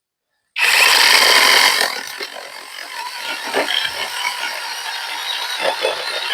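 Battery-powered chainsaw starting suddenly about half a second in and running at full speed, then dropping lower and rougher about two seconds in as the chain cuts through a log.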